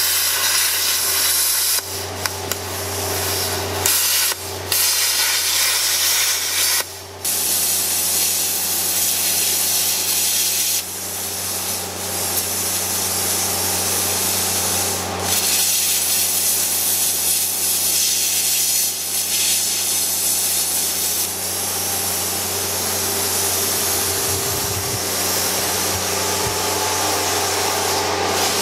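Plasma cutter cutting through steel welds on a tank hull: a loud, steady hiss from the cutting arc's air jet over a low, even hum, dipping briefly a few times in the first seven seconds.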